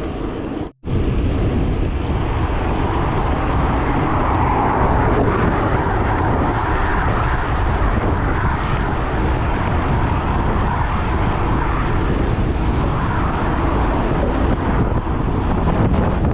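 Steady rushing rumble of wind buffeting the microphone while riding a gravel bike; the sound drops out briefly about a second in.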